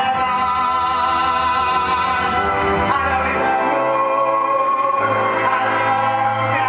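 Live musical-theatre music: an orchestra playing under a singer who holds long notes with vibrato.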